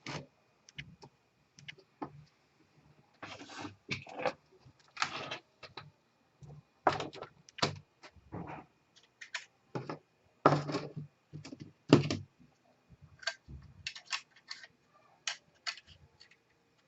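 Irregular clicks, taps and knocks of laptop parts being handled: plastic and metal pieces set down, pressed and fitted together, a few of them heavier thumps.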